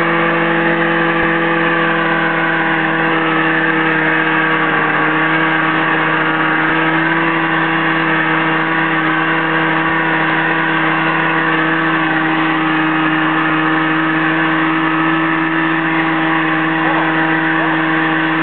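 1978 Arctic Cat Jag snowmobile's two-stroke engine running at a steady, near-constant speed under way on a snowy trail, with a slight dip in pitch about four seconds in. The owner says the engine was not making full power on this ride.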